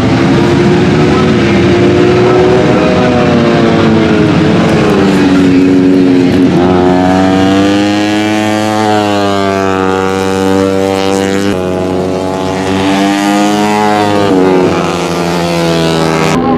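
Four-stroke 150 cc underbone racing motorcycles at high revs, several engines overlapping, their pitch climbing and dropping again and again as they accelerate and shift gears.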